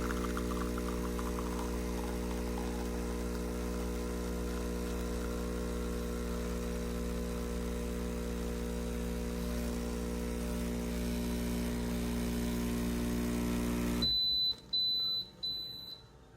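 A 20-bar espresso machine's pump hums steadily while brewing a double shot, with coffee pattering into the cup during the first couple of seconds. The pump cuts off suddenly near the end, followed by three short high beeps from the machine.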